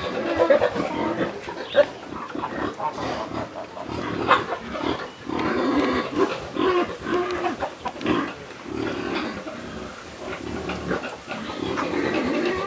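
Pigs grunting over and over in short calls, with a few sharp knocks in among them.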